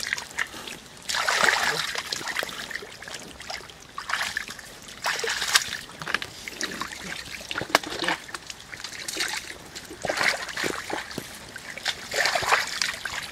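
Shallow muddy water splashing and sloshing in irregular bursts as hands and a mesh basket scoop through the mud, with water trickling and a few sharp clicks in between.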